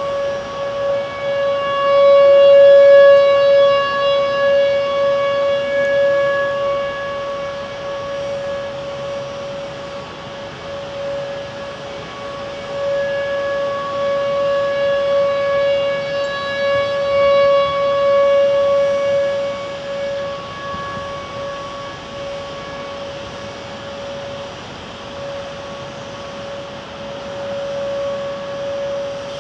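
Outdoor tornado warning siren sounding one steady held tone. It swells and fades in loudness, loudest a couple of seconds in and again midway, over a steady rush of noise.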